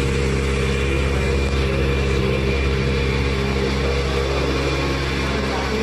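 Kawasaki Ninja ZX-4R's 399 cc inline-four engine idling steadily, holding an even pitch.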